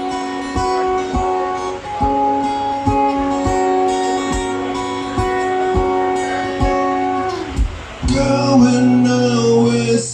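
Live band music: an acoustic guitar strumming held chords as the song's intro, with a fuller band sound and singing coming in about eight seconds in.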